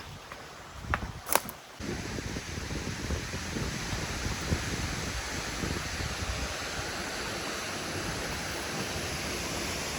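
Steady rushing noise of a waterfall, starting abruptly about two seconds in after two short knocks.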